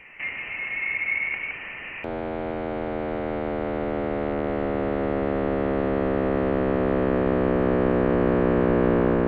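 Sonified telescope data, space observations converted into audio. A hiss gives way about two seconds in to a buzzing electronic drone of many stacked tones with a fast pulse, which slowly falls in pitch and grows louder.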